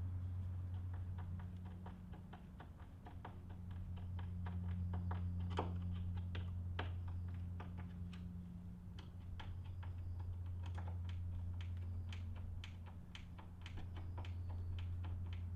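Quick runs of small light clicks from a hand screwdriver turning screws into hardware on a particleboard wardrobe door, over a steady low hum.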